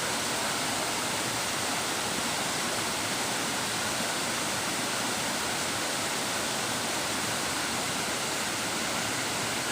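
Waterfall pouring steadily: an unbroken, even rush of falling water.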